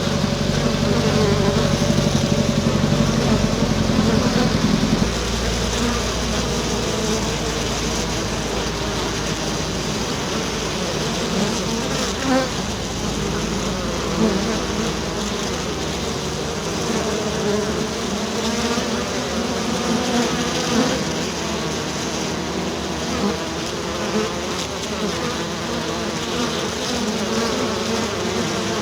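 A swarm of bees buzzing, many overlapping wavering drones. A louder, steadier low hum for the first five seconds gives way abruptly to a thinner, shifting buzz with occasional louder passes.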